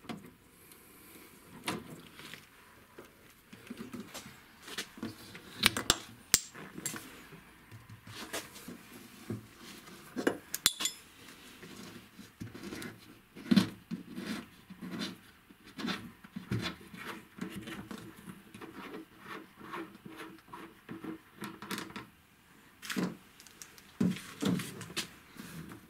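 Hands working on the rear wiper motor and its spindle: irregular clicks, taps and knocks of small hard plastic and metal parts being handled, with some rubbing in between.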